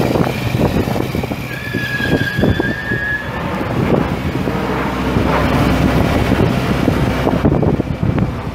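Kubota ZD1211 zero-turn mower's Kubota D1105 1.1-litre three-cylinder diesel engine running steadily.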